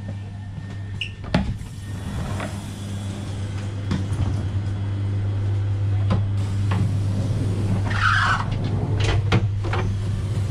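Passenger train coach interior with a steady low hum, while the lever-handled door between coaches is unlatched and pushed open. There are several sharp clicks and clunks from the latch and door, and a brief rush of noise near the end as it swings open.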